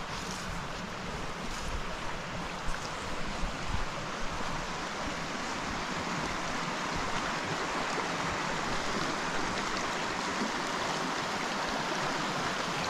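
Teepee Creek, a small mountain stream, running steadily over rocks, a constant rushing sound that grows gradually louder. A few footsteps on the trail are heard in the first few seconds.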